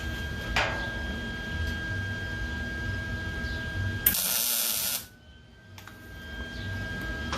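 A sharp metallic click about half a second in as a vise-grip clamp is moved along the seam, then one short burst of welding crackle lasting about a second, tack-welding the sheet-metal taillight panel to the cross member, over a steady hum.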